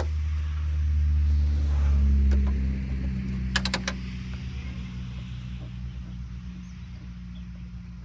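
A motor vehicle's engine hum swells and then slowly fades away. A short quick run of clicks comes about three and a half seconds in.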